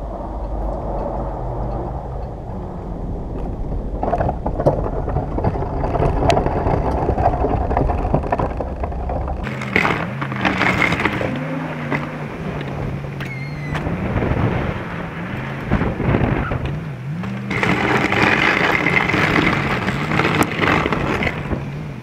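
Ram 2500 pickup truck running while plowing snow, over a steady rough noise. From about ten seconds in, its engine note rises and falls repeatedly. In the first part, wind rumbles on the microphone.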